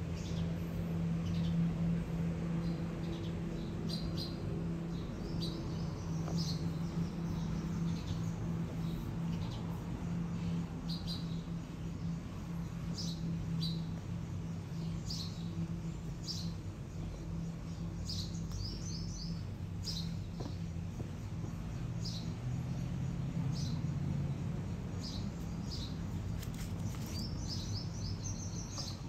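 Small birds chirping in short, high calls, scattered irregularly and now and then in quick runs, over a steady low hum.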